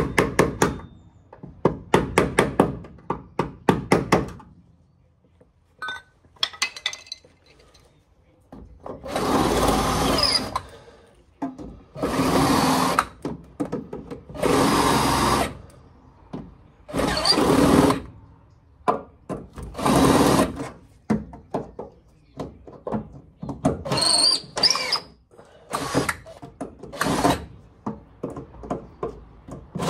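Rapid scraping strokes by hand on the rusty steel floor pan of a Rover SD1. Then, from about nine seconds in, a cordless drill fitted with a wire brush runs in repeated bursts of about a second each, with short pauses between them, scrubbing the underside back to clean metal ready for welding.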